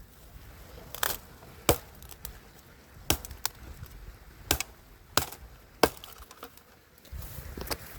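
Chopping into wood: about eight sharp strikes at an uneven pace, each a short crack.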